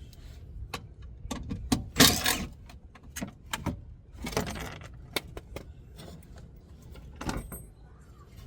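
Clicks and small metallic clatter of 8mm bolts being taken out of a car's underbody cover and handled. There is a louder scraping rustle about two seconds in, and another near the middle.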